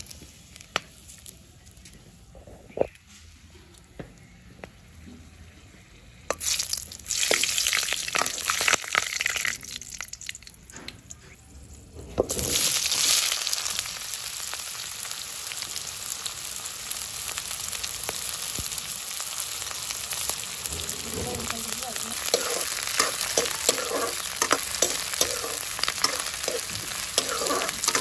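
Spices and bay leaves frying in hot oil in an aluminium kadai, with a burst of sizzling a few seconds in. About twelve seconds in, chopped onions go into the oil with a sudden loud sizzle that keeps on steadily, while a metal ladle stirs and clicks against the pan near the end.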